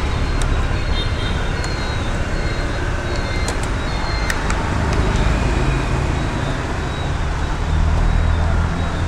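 Road traffic: a steady low rumble of engines and road noise, with a few faint clicks.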